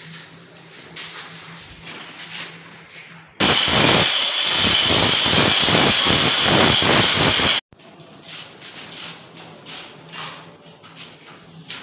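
Electric angle grinder cutting marble: a loud burst of about four seconds that starts and stops abruptly. Before and after it, quieter handling noises over a faint steady hum.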